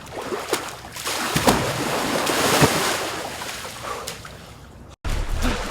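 Water rushing and splashing that swells about a second in, peaks and fades away. Near the end it cuts off abruptly at an edit, and a low hum follows.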